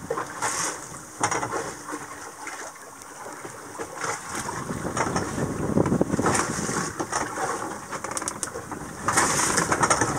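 Sea water splashing and sloshing in irregular bursts, with wind noise on the microphone; louder from about four seconds in and again near the end.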